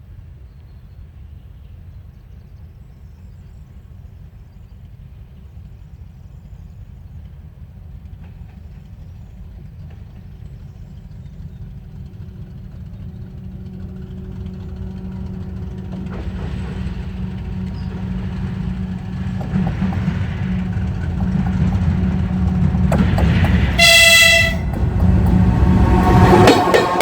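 TE33AC diesel-electric locomotives (GE V12 diesel engines) approaching, their steady engine hum and rumble growing louder throughout. Near the end the locomotive sounds one short horn blast.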